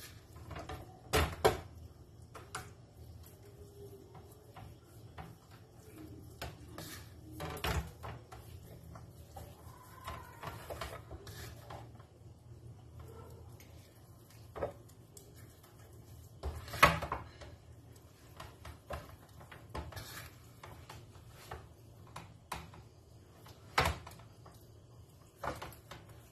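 Hands seasoning a raw whole chicken and handling bowls on a kitchen counter: soft rubbing and handling noise broken by four sharp knocks, the loudest a little past the middle. A low steady hum runs underneath.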